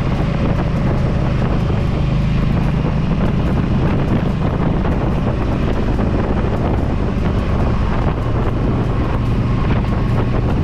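Yamaha V Star 1300 Deluxe's V-twin engine running at a steady speed on the move, with wind rushing over the microphone.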